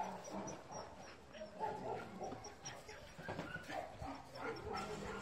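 Several dogs barking faintly, short scattered barks and yips.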